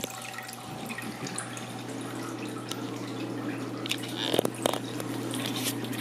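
Chilled beer wort running from a plastic transfer tube into a vessel of wort, a steady trickling splash over a steady low hum. Two light knocks come about four and a half seconds in.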